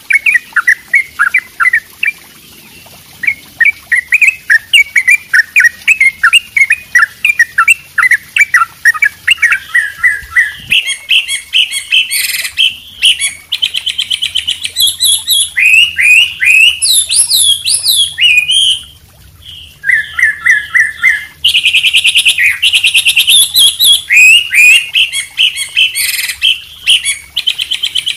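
Combined recording of cage-bird songs from a white-rumped shama (murai batu), a yellow-vented bulbul (trucuk) and a wambi: quick repeated chirps at first, then from about ten seconds in a more varied, higher song with fast trills.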